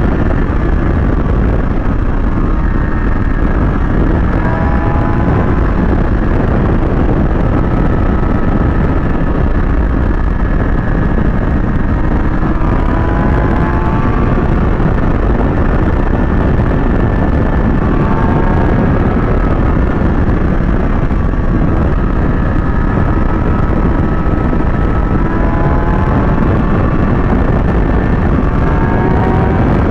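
Kawasaki ZX-6R sport bike's inline-four engine running at speed under heavy wind rush on the microphone, its revs climbing in short rising whines and dropping back several times as it accelerates through the gears.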